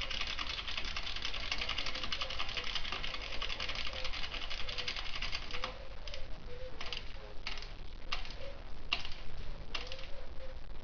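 A socket ratchet clicking: a fast run of clicks as a fastener is spun, then about half a dozen separate clicks a little over half a second apart as it is worked stroke by stroke.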